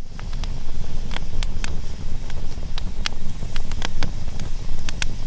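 Wood campfire burning, its split logs crackling with sharp, irregular pops and snaps, several a second at times, over a steady low rumble.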